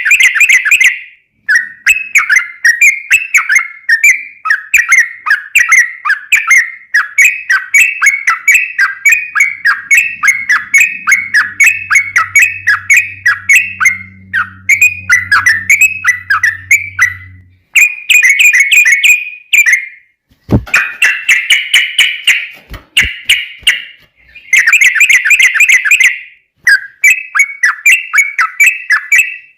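Yellow-vented bulbul (trucukan) singing long, rapid runs of bubbly chattering notes, several a second, broken by short pauses. This is the long 'ropel' song used to lure other bulbuls into answering. A faint low hum sits under the song in the middle, and there is a sharp click about two-thirds of the way in.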